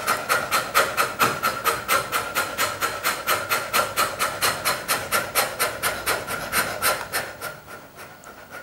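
A woman breathing rapidly and rhythmically through an open mouth, panting about five or six breaths a second in an even rasping pattern; this is hyperventilation-style holotropic breathing. The rhythm weakens near the end.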